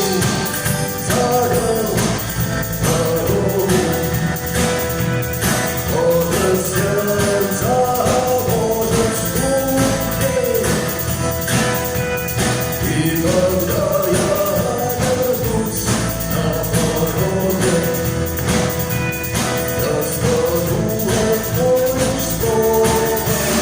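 Rock song with a male singer's voice over a band and a steady drum and tambourine beat.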